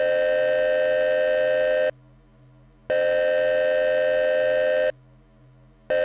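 Emergency alert warning tone: a steady, buzzy tone held for about two seconds, then a second's gap, sounding three times, with a faint hum in the gaps.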